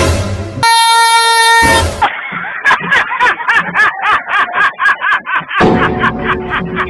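A loud blast from a fake train horn: one steady pitch with a sharp start and sharp cut-off, lasting a little over a second. A few seconds of quick, rhythmic pulsing sound follow it.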